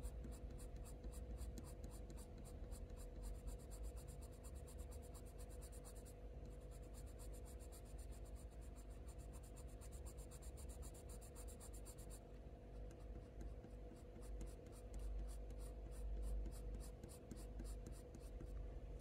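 Faber-Castell Polychromos coloured pencil scratching over hot-press watercolour paper in rapid short flicking strokes, several a second. It is faint, over a steady low hum.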